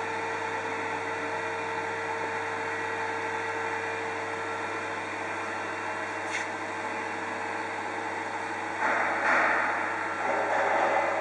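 Steady mechanical hum with hiss, with a held tone that fades out about four seconds in. A louder rushing noise comes in about nine seconds in and again near the end.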